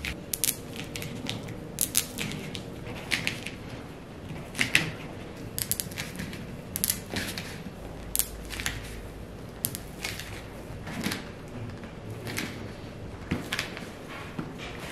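Edges of foam roll play mats (PVC surface over a PE foam core) being squeezed by hand, giving irregular sharp crackling clicks, several a second. The crackle is the air cells inside the foam popping as the mat edge is pressed flat.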